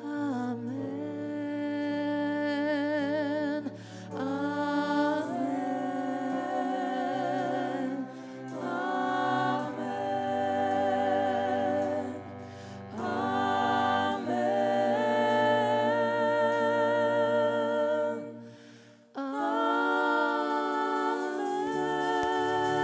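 Worship song: a lead voice singing long, drawn-out "Amen" phrases with vibrato, about five phrases with short breath breaks between them, over a steady low sustained accompaniment.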